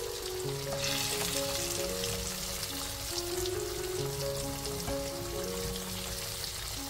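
Flour-coated chicken pieces deep-frying in hot oil in a wok: a dense, steady crackling sizzle that grows louder about a second in. Background music with sustained notes plays underneath.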